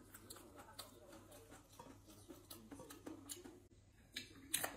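Faint eating sounds: soft scattered clicks and taps as food is picked from a plate by hand and chewed, with two sharper clicks near the end.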